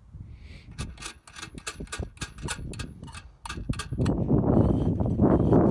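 Light clicks and taps of air filter housing parts being handled and fitted back on, then about four seconds in a loud, steady rushing noise begins.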